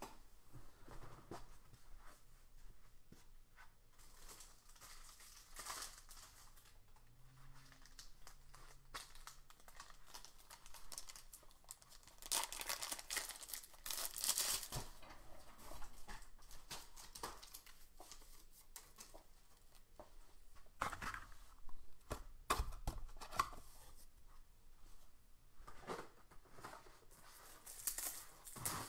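Paper or plastic packaging being handled: crinkling, rustling and tearing in irregular bursts, the longest ones near the middle.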